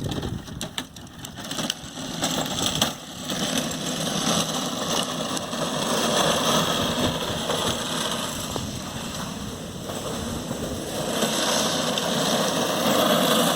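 Hard PETG 3D-printed wheels of a Razor Drifter electric ride-on rolling across concrete, with the electric drive running. The noisy rumble starts with some knocks and grows louder partway through and near the end.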